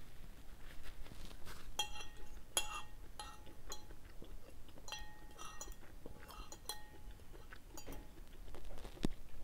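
Metal spoon and fork clinking against a ceramic plate as the last of the food is scooped up: a string of short, ringing clinks at irregular intervals.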